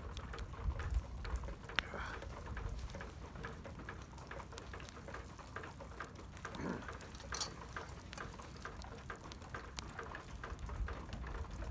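Wood campfire crackling: irregular sharp pops and ticks over a low wind rumble on the microphone.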